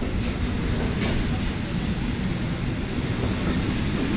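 Freight train of covered sliding-wall wagons rolling past: a steady, loud rumble of steel wheels on rail, with a thin high wheel squeal coming in about a second in.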